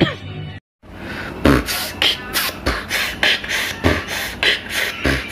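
Human beatboxing with a hand cupped over the mouth: deep bass-kick thumps roughly every second and a bit, with sharp hissing snare and hi-hat sounds between them in a steady beat. It starts just under a second in, after a brief cut to silence.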